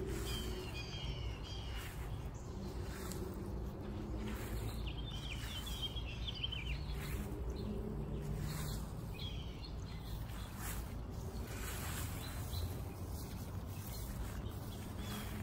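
Outdoor background of birds chirping at intervals over a steady low rumble, with a few soft brief rustles.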